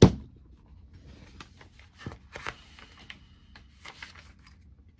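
A sharp thump at the very start, then faint paper rustling and page handling from a paperback book, with a few louder rustles around two and four seconds in.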